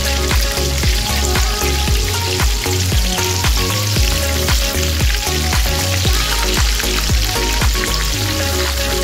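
Breaded chicken breast cutlets frying in a pan of oil, a steady sizzle, while a slotted spoon stirs and turns them. Background music with a steady beat plays underneath.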